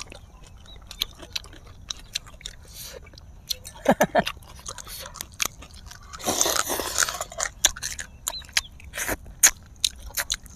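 Close-miked eating sounds: two people biting and chewing adobo fish and crisp chicharron, with many sharp crunches and a louder stretch of crunching about six seconds in.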